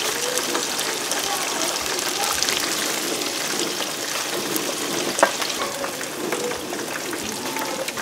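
Chicken karaage deep-frying in a pot of hot oil, a steady crackling sizzle, with one sharp click about five seconds in.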